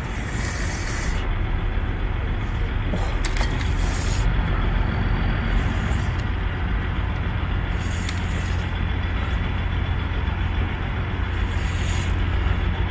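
Eating noises: short bursts of chewing and slurping every two or three seconds, over a steady low rumble.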